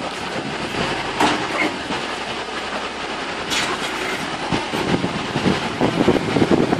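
Truck-mounted crane running as it lowers a heavy portable compressor onto a flatbed truck: a steady mechanical running noise with two sharp metallic clanks, about a second in and about three and a half seconds in, and louder rattling and knocking toward the end.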